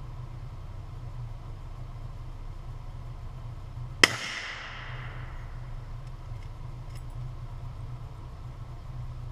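A single rifle shot from a Remington 770 bolt-action rifle, a sharp crack about four seconds in that echoes away over about a second. A steady low hum runs underneath.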